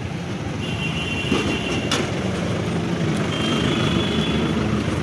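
Busy street traffic noise: a steady engine rumble, with a high, thin steady tone heard twice and a single sharp click about two seconds in.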